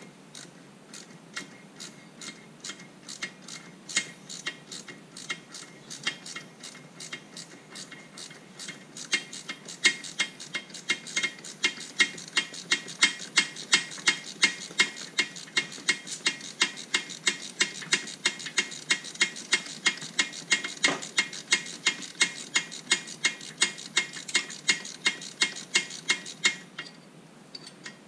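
Ratchet spanner clicking in an even run, a few clicks a second, as a bolt is undone on the trim-ram mount of a Mercruiser Bravo II stern drive. The clicking grows louder about a third of the way in and stops shortly before the end.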